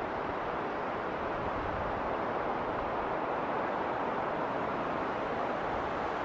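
Snowstorm wind howling: a steady rushing noise that swells a little in the middle.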